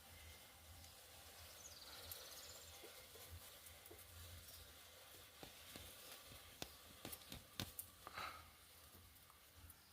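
Near silence: faint room tone with a short high bird chirp about two seconds in, and a few light clicks and taps of kitchen things being handled in the second half.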